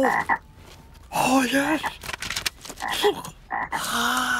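Cartoon frog croaks: several short, pitched croaking calls a second or two apart.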